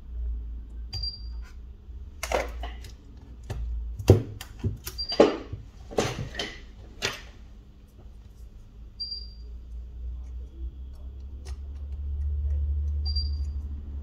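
Handling sounds at a workbench: about half a dozen sharp clicks and knocks in the middle of the stretch, over a low steady rumble that grows louder near the end. A faint short high beep recurs about every four seconds.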